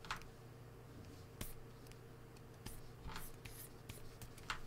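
Faint scratches and taps of a stylus pen on a graphics tablet: a handful of short, scattered strokes over a steady low hum.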